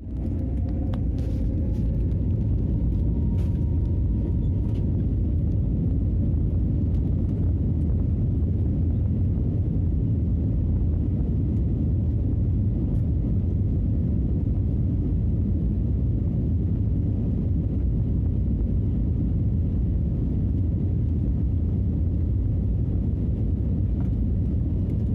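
Cabin noise of an Airbus A320-family jet rolling on the ground: a steady low rumble, with a faint whine that rises in pitch over the first couple of seconds and then holds briefly.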